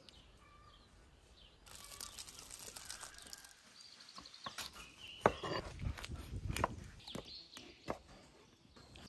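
Faint birdsong, then a rustle about two seconds in; in the second half come a series of sharp knocks and heavy thuds from a knife cutting a raw whole chicken on a wooden cutting board.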